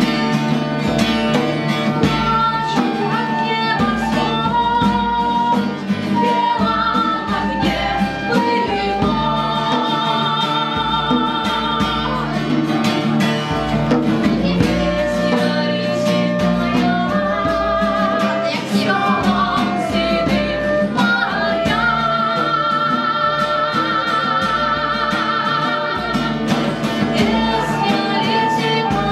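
A live band playing a song: guitar with a singing voice, its held notes wavering.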